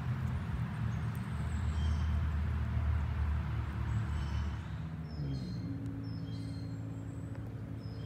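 A low, steady mechanical drone, like an engine running in the distance. About five seconds in, its pitch shifts and settles a step higher. A few faint bird chirps sound above it.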